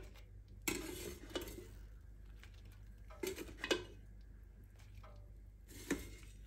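Spatula scooping fries out of a Ninja Foodi air fryer basket onto a serving dish: a handful of short scrapes and light knocks against the basket and the dish, with quiet gaps between them.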